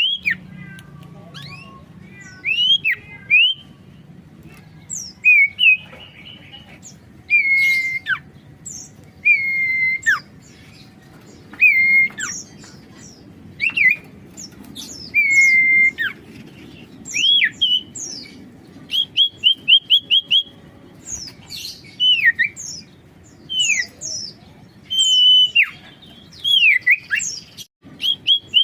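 Common iora (sirtu) singing steadily: clear whistled notes, some held long, others swooping up or down, broken up by quick runs of four or five short repeated notes.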